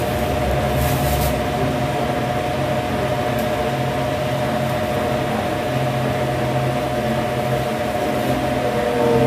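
Steady machine hum with a constant whine over a low drone, unchanging throughout.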